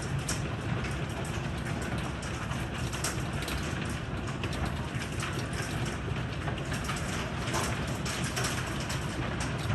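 Heavy rain pouring steadily, with many scattered sharp ticks of drops striking a hard surface.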